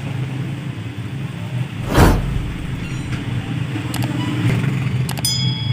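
Samsung automatic washing machine's wash motor running with a steady low hum after a control-board replacement, showing the machine now works. A loud thump comes about two seconds in.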